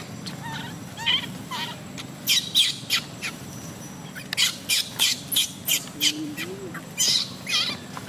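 A baby monkey crying: a rapid, irregular string of short, shrill squeals, several a second, many falling in pitch.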